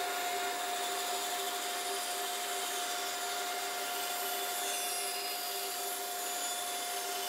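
Bandsaw running and cutting through a laminated oak mallet head block: a steady whirring hum with a constant tone, over the hiss of the blade in the wood.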